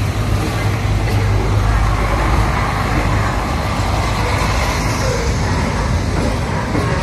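Passenger train passing close by, a steady loud rumble of the carriages rolling past with a low hum underneath.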